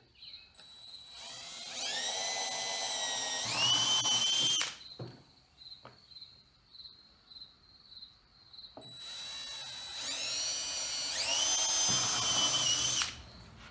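Power drill with a small bit drilling holes through plywood, two runs: each time the motor whine climbs in pitch, jumps higher near the end and cuts off. A few light knocks between the runs.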